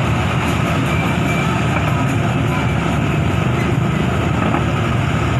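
Excavator's diesel engine running steadily with a deep, even rumble.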